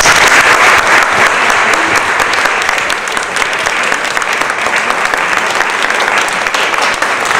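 Audience applauding: many hands clapping in a sustained, steady ovation.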